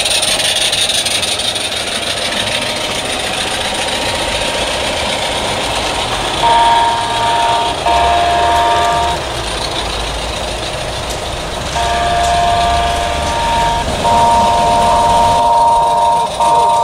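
Train whistle sounding five blasts, each a steady, multi-note tone about one to two seconds long, over a steady hiss.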